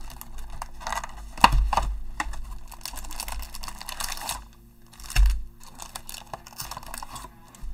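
Hands opening a cardboard Panini Mosaic trading-card hobby box: irregular crinkling and tearing of the wrapper and cardboard, with a sharp knock about one and a half seconds in and a dull thump around five seconds, then foil card packs rustling as they are pulled out.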